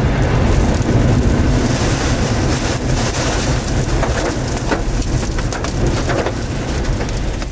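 Heavy storm rain with wind rumbling on the microphone and scattered sharp hits of drops against it.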